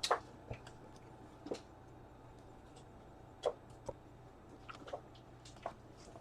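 Faint, scattered clicks and taps of trading cards being handled, about one every second or so, over a low steady room hum.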